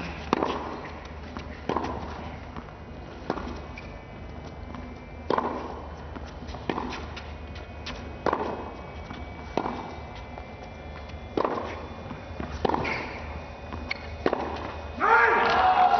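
Tennis ball struck back and forth with rackets in a baseline rally, a crisp hit about every one and a half seconds, about ten in all. The crowd breaks into cheering about a second before the end as the point is won.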